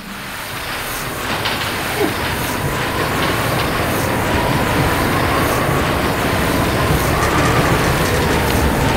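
A steady rushing roar that builds over the first couple of seconds and then holds, with a wavering whine running above it, like a train at speed.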